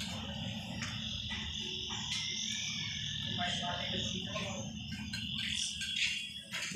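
A steady, high-pitched chorus of calling animals, over a low rumble.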